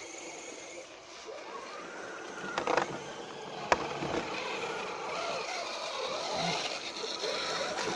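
Electric drive of a 1/10-scale RC rock crawler whining as it drives through a muddy puddle, its pitch rising and falling with the throttle. Two sharp knocks come about three and four seconds in.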